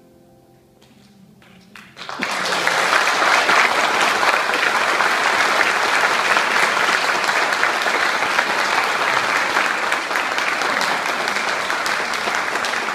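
Concert audience applauding: after a moment of near quiet, the clapping breaks out suddenly about two seconds in and carries on steadily.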